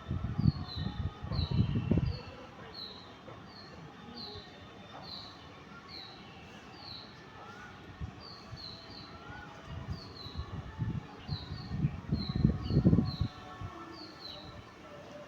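A bird calling over and over with short high falling chirps, about one or two a second. Low rumbling bursts come in the first two seconds and again from about ten seconds in.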